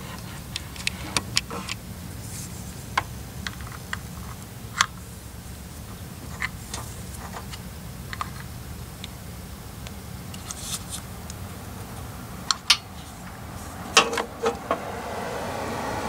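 Small metallic clicks and taps from a battery disconnect switch and its wire terminals being handled, over a steady low rumble. A buzz sets in near the end.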